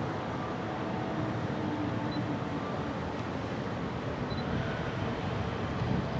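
Steady low rumble from an electric commuter train approaching from far off, mixed with wind on the microphone.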